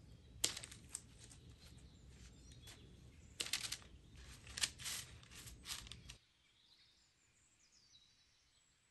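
Kitchen scissors snipping pita bread into squares: a run of sharp snips, the loudest bunched together in the middle. About six seconds in the snipping stops and the low background hum cuts off suddenly, leaving only faint sound.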